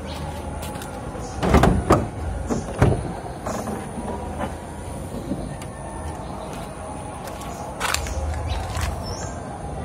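Car bonnet being unlatched and swung open: a few loud clunks and rattles of the latch and hinges about one and a half to three seconds in, then the bonnet left open. A bird chirps briefly near the end.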